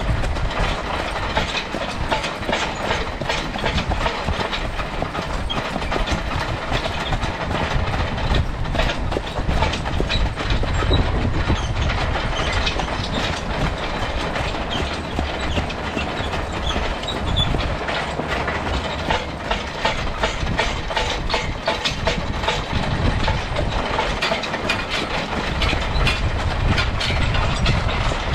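Steel excavator track dragged along a road behind a team of draft horses, a continuous loud clattering rattle with many close-packed clanks and scrapes.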